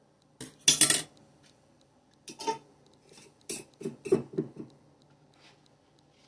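A metal spoon clinks and scrapes against a glass canning jar, with a glass jar and dishes knocked and set down on a countertop; the loudest clatter comes about a second in, then a run of lighter knocks a few seconds later.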